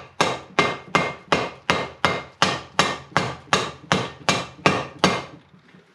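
Rubber mallet striking a deep-well socket in an even series of about fourteen light taps, roughly three a second, stopping about five seconds in. The taps drive the drive shaft retainer down to seat it on the outboard's drive shaft.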